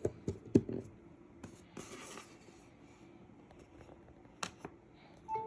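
Sharp clicks and plastic rubbing from handling a magnetic charging cable and its connector tip, the loudest click about half a second in. A short, steady two-pitch beep sounds near the end.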